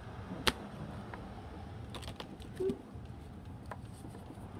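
Slick, oversized oracle cards being shuffled by hand: scattered light clicks and taps, with one sharper snap about half a second in.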